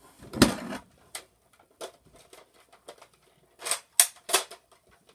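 A thump and short plastic clatter about half a second in, then scattered light clicks and three sharp plastic clicks in quick succession near the end, as a toy Nerf blaster is picked up off the floor and handled.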